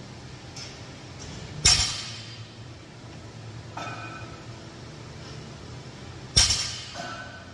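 A weight plate on a loadable handle set down on a rubber gym floor twice, about five seconds apart, each a sharp thud with a metallic clink and a short ring. A lighter metal clink comes in between as the weight is picked up again.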